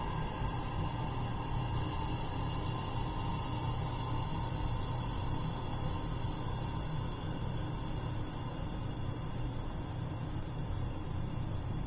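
HVAC unit running: a steady low hum under a continuous high-pitched whine made of several tones at once, unchanging throughout.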